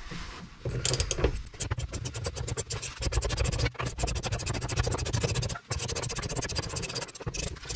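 Socket ratchet clicking rapidly and continuously as it spins the nut off a rear leaf-spring bolt on a Citroen Relay, with two brief pauses. The nut is running freely now that it has been wire-brushed and soaked in WD-40.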